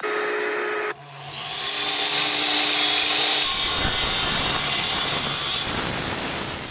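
Power saw cutting through a pressure-treated 2x4, a loud steady rasping cut. It starts abruptly, dips briefly about a second in, then runs evenly for several seconds before dying away near the end.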